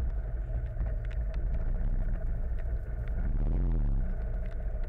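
Engines idling and creeping in slow traffic, a deep steady hum. About three and a half seconds in, one rises and falls in pitch as it is revved briefly. Scattered light ticks of raindrops hit the camera.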